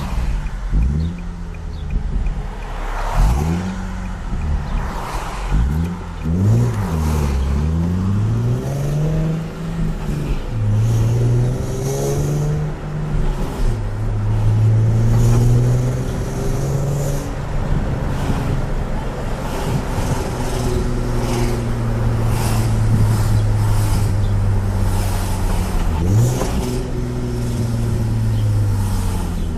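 Nissan 370Z's 3.7-litre V6 and exhaust revving in several quick blips, then running for longer stretches at steadier revs that rise and fall, with another quick blip near the end. This is the noise the owner blames on how the exhaust is fitted.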